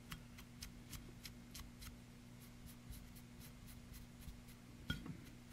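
Faint, quick scratching ticks of a paintbrush being dry-brushed over a small plastic model figure's head, over a steady low hum, with one slightly louder click near the end.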